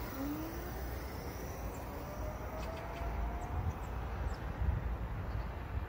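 Electric kick scooter's motor whining, rising steadily in pitch as it accelerates away, then fading. The scooter is running normally on a test ride after its throttle and controller were repaired. A steady low outdoor rumble runs underneath.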